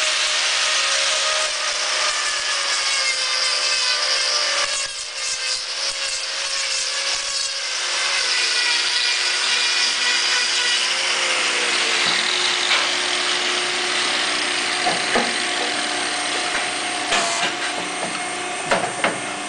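Angle grinder fitted with a hoof-trimming disc running steadily and grinding down a cow's hoof horn: a continuous motor whine with rasping as the disc cuts. A few sharp knocks near the end.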